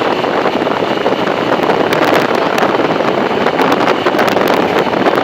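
Loud, steady wind noise on the microphone of a moving motorcycle, with scattered crackles in the second half.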